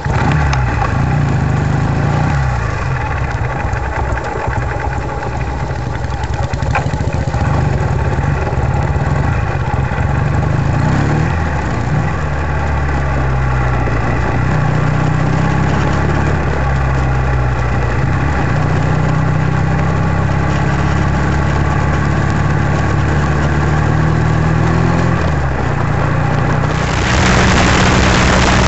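Classic British motorcycle engine heard from the saddle, pulling away and running through the gears, its pitch shifting at each gear change. Near the end, wind noise on the microphone rises sharply over the engine.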